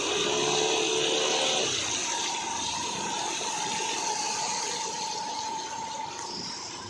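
Rushing, splashing floodwater with a motor running underneath.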